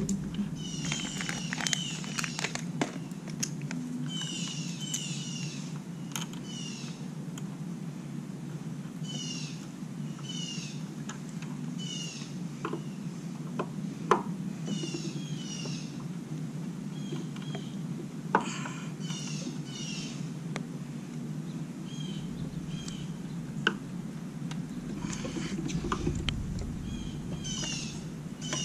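Birds chirping over and over in short bursts. Scattered sharp clicks and knocks come from a hand tool driving screws into the plastic top of a Polaris 280 pool cleaner, the loudest about 14 and 18 seconds in, over a steady low hum.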